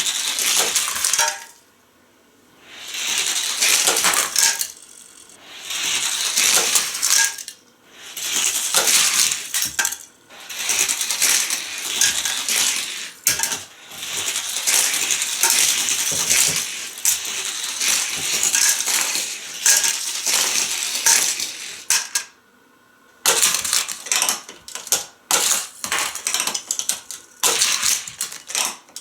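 Die-cast toy car rolling and rattling along plastic track pieces in repeated runs of a few seconds each, with short pauses between. Near the end the sound breaks into quick clicks and clatters.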